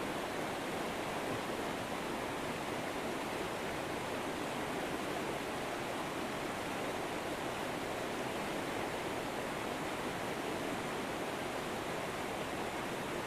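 Steady rushing of flowing river water, an even unbroken wash without distinct splashes.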